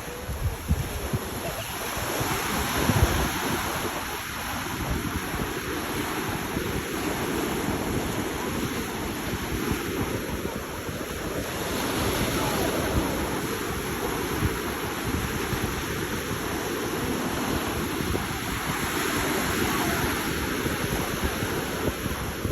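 Ocean waves washing in, a steady surf rush that swells and eases every several seconds, with wind buffeting the microphone in low gusts.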